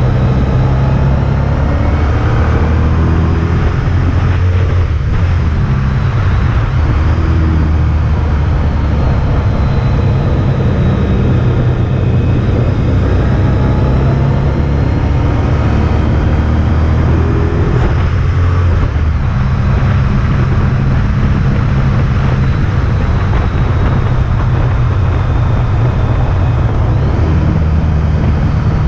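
Honda ST1300's V4 engine running under way, heard from the bike itself, its pitch rising and falling several times as the rider works the throttle, over a steady rush of road noise.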